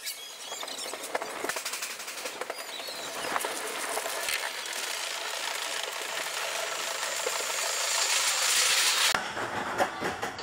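Roller coaster train clattering along its track: a steady rushing hiss full of rapid, irregular rattling clicks, building a little louder and then cutting off suddenly about nine seconds in.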